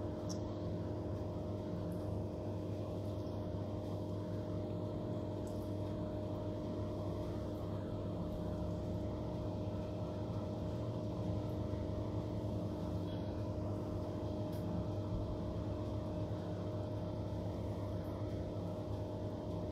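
Steady low mechanical hum, unchanging throughout, with a few faint soft clicks.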